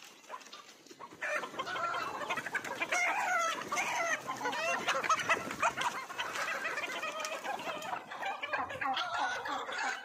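A flock of desi (country) chickens clucking and calling over one another. The calls start about a second in and keep up densely from there.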